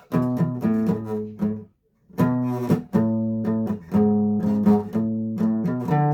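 Acoustic guitar strummed in chords, with a short break about two seconds in before the strumming starts again.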